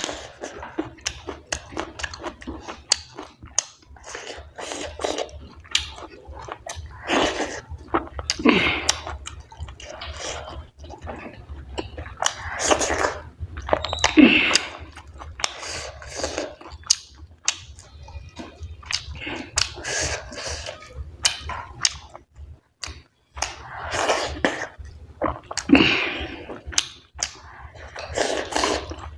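Close-miked chewing of chicken curry and wheat dhido: irregular wet smacks and clicks of the mouth, with louder, noisier mouthfuls every second or two.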